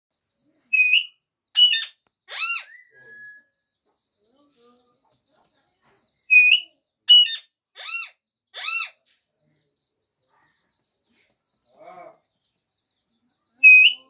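Parrot calls: groups of three or four short, shrill squawks in quick succession, one group near the start and another in the middle, with a third group beginning at the very end.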